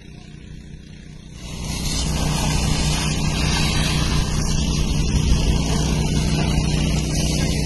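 Fire hose jet spraying water onto smouldering rubble, a steady hiss, over an engine running steadily. The sound swells up about a second and a half in and then holds.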